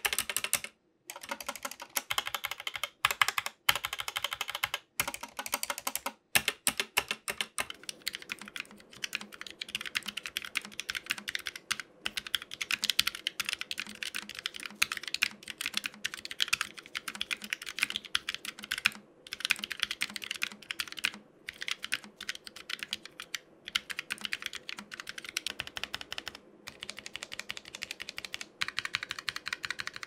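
Fast typing on compact mechanical gaming keyboards for a sound test: a dense, uneven run of key clacks with a few short pauses in the first seconds. From about eight seconds in, the keys are a Fnatic Streak 65's low-profile mechanical switches.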